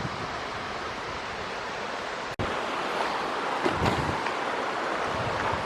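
Steady rushing of flowing river water, with a brief dropout just over two seconds in and a couple of faint knocks near four seconds.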